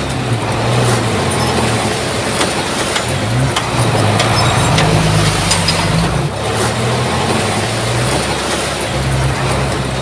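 Diesel engine of a Komatsu crawler bulldozer working under load. Its note rises about three and a half seconds in and falls back about two seconds later, with scattered sharp knocks over the engine.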